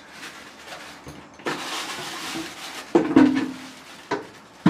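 Plastic bag rustling as it is handled and set down, with a few sharp knocks as things are put in place.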